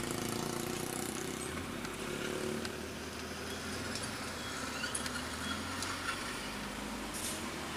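Engine of a square-body Volkswagen Voyage running at low speed, heard from inside the cabin as a steady low hum while the car creeps along. The engine is still cold, which the owner blames for its stalling.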